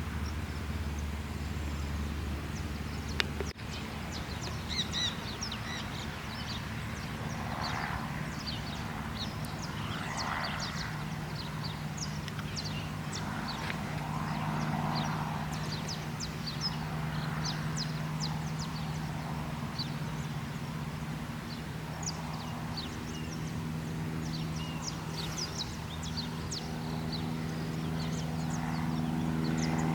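Distant light-aircraft engine droning steadily, growing louder in the last several seconds as it comes nearer, with many birds chirping and calling over it.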